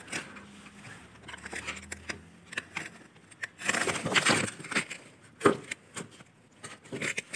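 Eating noises at a table: chewing and crunching of sushi rolls, with short clicks of chopsticks against styrofoam takeaway boxes. A faint low hum sits under the first two seconds.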